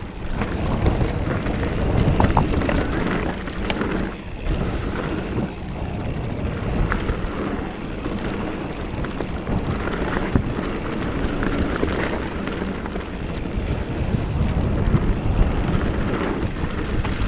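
Santa Cruz Hightower 27+ mountain bike descending a hard-pack dirt trail: a continuous rush of wind on the camera's microphone with tire rumble, broken by scattered clicks and knocks from the bike.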